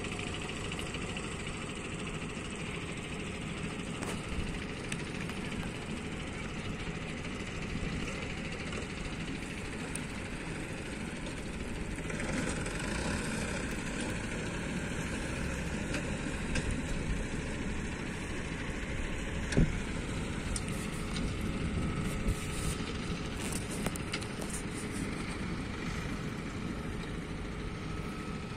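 Mahindra tractor's diesel engine running steadily as it pulls two trailers loaded with sugarcane, growing a little louder partway through. A single sharp knock comes about two-thirds of the way in.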